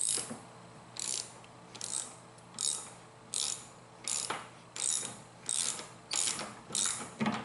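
Hand ratchet wrench clicking on each back-stroke while it drives a lag screw through a caster's mounting plate into wood, about nine strokes at an even pace of roughly three every two seconds.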